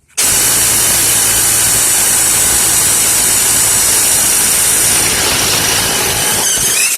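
Dewalt DCF787 brushless 1/4-inch cordless impact driver hammering steadily for almost seven seconds on a lug nut torqued to 150 ft-lbs, struggling at the limit of its rated torque before the nut breaks loose; it stops abruptly.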